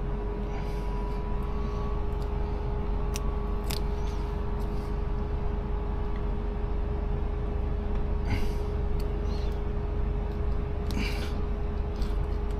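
Hands at work fitting a dash cam to a car windshield: a few short rustles and clicks, around three seconds in and again near eight and eleven seconds in, over a steady low hum with a constant mid tone.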